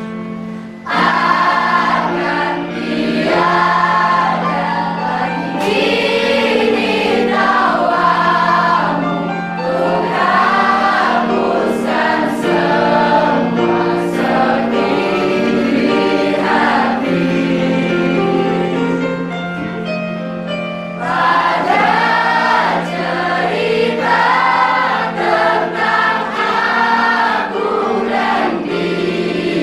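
A class of students singing a song together in chorus, over a steady held accompaniment note.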